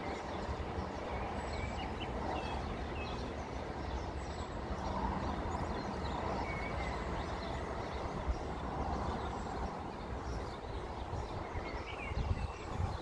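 Wind buffeting the microphone outdoors, with scattered short bird chirps over it.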